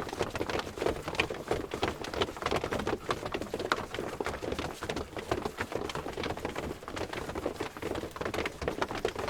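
Footsteps of a crowd of people walking: many overlapping steps making a dense, continuous patter with no pauses.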